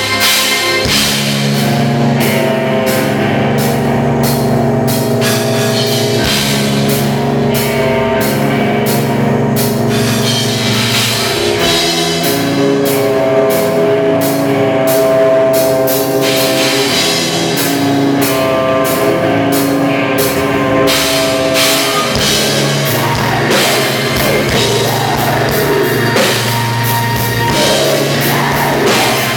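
Live symphonic death/black metal band playing loudly: fast drum kit and cymbals with distorted guitar and bass under held keyboard chords that change every few seconds.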